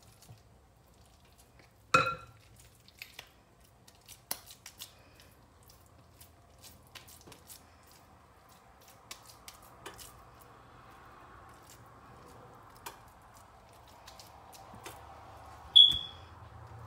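Kitchen handling sounds while fish patties are shaped by hand: light scattered taps and clicks, with two sharp ringing clinks of dishes, one about two seconds in and a louder one near the end.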